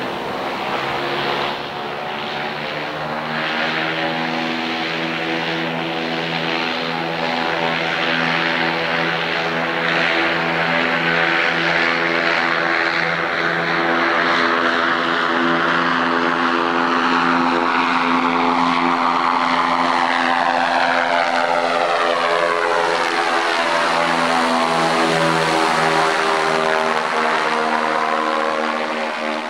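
Propeller aircraft engine droning steadily overhead. Its tone sweeps as the aircraft passes over, closest about two-thirds of the way through.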